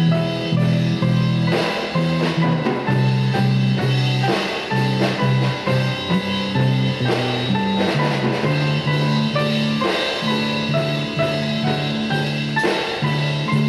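Background music: an instrumental passage with a drum kit and a moving bass line under held notes.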